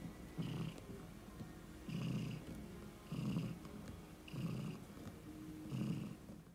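Tabby cat purring close to the microphone, in even swells about once every second and a bit, one with each breath.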